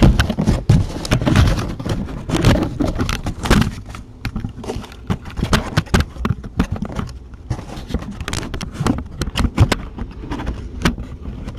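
Handling noise close to the microphone: a busy run of knocks, clicks, scrapes and rustles as the camera is picked up and repositioned and things in a cardboard pen are shifted. The knocks are thickest in the first few seconds and again near the end.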